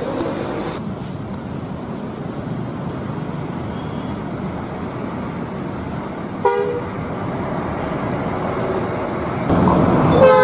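Large bus engine running amid road traffic noise, with a brief horn toot about two-thirds of the way through and a louder, longer horn starting near the end.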